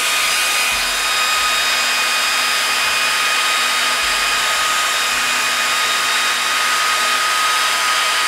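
Diode laser module's small cooling fan running steadily: an even whir with a thin high whine over it.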